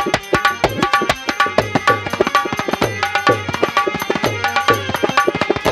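Instrumental interlude of Bundeli folk music: a hand drum played in a fast, driving rhythm over steady held melodic notes, with bright jingling strokes on top. Singing comes in right at the end.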